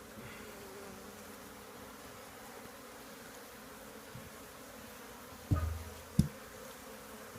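A mass of honey bees buzzing in a steady, even hum around a hive being cut out of the rafters. Two knocks are heard about five and a half and six seconds in, a dull thump and then a sharper one.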